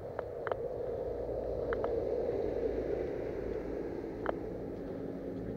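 Footsteps through wet grass and mud with gear and brush rustling against a helmet-mounted camera, a steady noisy shuffle with a few short sharp clicks, one of them at about four seconds in.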